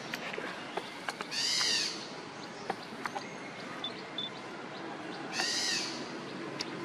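Two short, high-pitched animal calls about four seconds apart, each rising and falling, over scattered small ticks.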